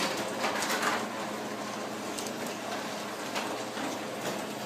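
Stanley Deluxe 1/3 horsepower chain-drive garage door opener running steadily as it closes the door, with faint clicks from the slightly loose chain.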